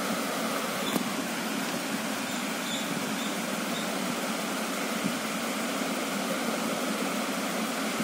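Steady, even background hiss with a low hum underneath, like a running fan, with no distinct strokes or clicks.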